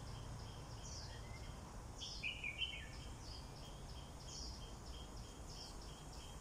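Faint birds chirping among trees, with short falling high notes about once a second and a steady high chirp repeating about three times a second; a louder short call comes about two seconds in, over a low background rumble.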